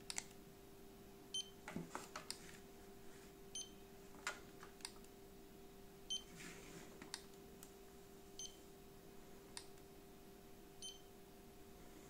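Handheld infrared thermometer beeping each time a reading is taken: five short, high beeps about every two and a half seconds, with scattered light clicks from the trigger and handling in between.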